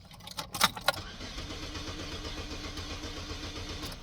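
Key clicks in the ignition, then a 2006 Saturn Ion's 2.4-litre engine is cranked by the starter for about three seconds, turning over evenly but never catching, and the cranking stops. The engine cranks but won't start although the battery is new and tested good.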